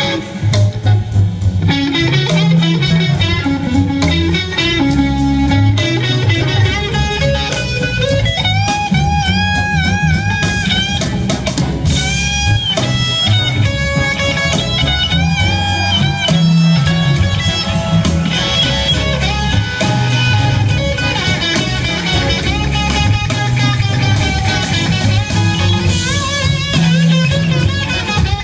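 Live blues-rock band playing an instrumental passage: an electric guitar lead with bent, gliding notes over bass and drums.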